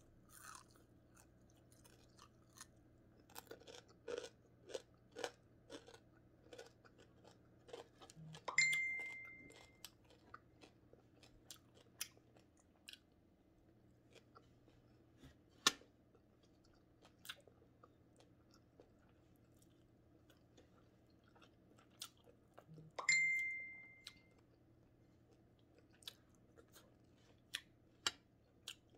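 Chewing and crunching of crispy fried matambaka fish eaten by hand, with irregular crisp crunches and mouth clicks. Twice, about 9 s and 23 s in, a short ringing ping fades out over about a second.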